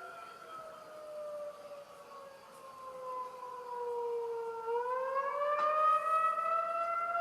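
Outdoor tornado warning siren wailing: its steady tone slowly falls in pitch for about four and a half seconds, then rises back up and grows louder.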